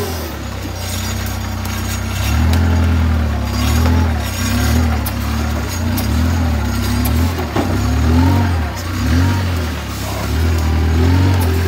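Compact loader tractor's engine working hard, its pitch rising and falling again and again as the throttle and load change, with a few sharp clicks over it.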